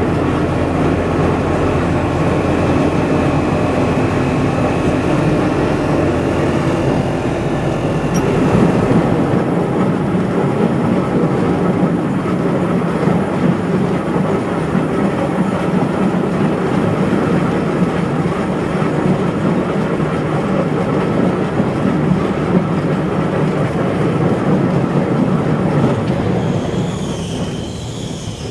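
Heritage electric tram running along the track, heard from its open end platform: a steady rumble of wheels on rail and running gear, with a thin whine that fades out about eight seconds in. The sound eases near the end.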